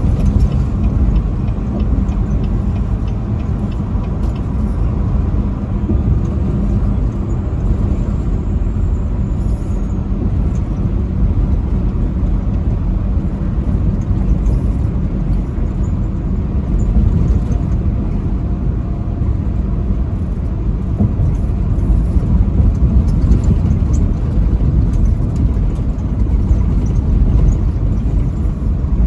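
Semi-truck driving at highway speed: a steady, low engine and road rumble.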